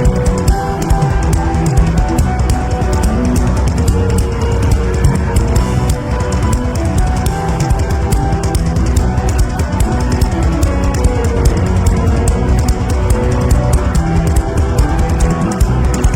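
Loud instrumental band music with a busy drum beat and sustained held notes.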